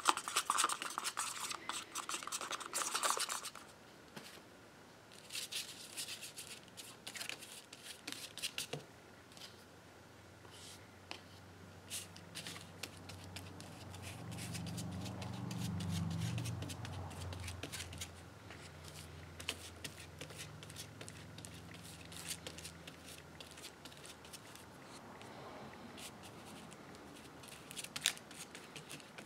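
A stick scraping and stirring thickened epoxy in a plastic cup for the first few seconds, then scattered small clicks, taps and rubs as hands work the glued wood molding and bar clamps. A low hum swells and fades in the middle.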